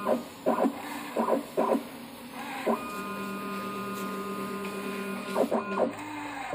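Automatic paint colorant dispensing machine running as it dispenses yellow colorant into paint base. It gives a steady electric whine, broken by short mechanical whirs: a few in the first three seconds, then three in quick succession near the end.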